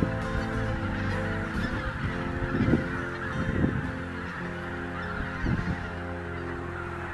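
A large flock of wild geese calling in flight, a dense chorus of many overlapping honks with a few louder single calls standing out.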